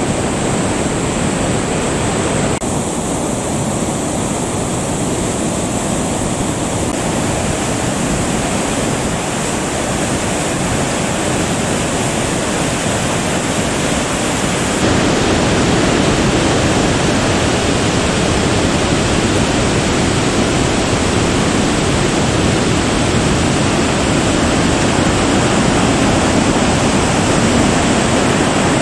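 Waterfall in heavy flow: a loud, steady rush of falling water. The sound changes abruptly about 2.5 s in and again about 15 s in, and is louder after the second change.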